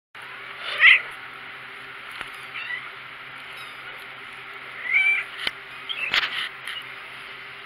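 A four-week-old tabby kitten mewing, three or four short high-pitched mews, the first about a second in the loudest, with a few sharp clicks around them near the middle.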